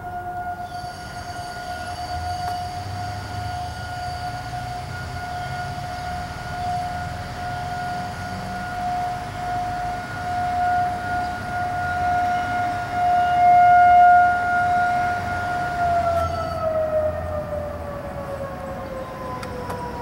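Distant outdoor tornado warning siren holding one steady tone that swells louder and fades. About four-fifths of the way in it winds down, its pitch falling steadily.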